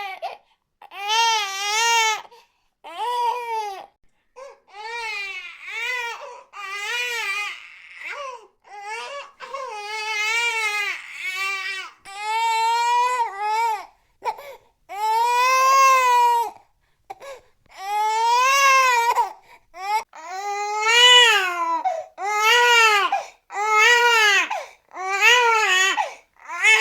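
An infant crying: a long run of high wails, each a second or two long, rising and falling in pitch, with short breaks between them.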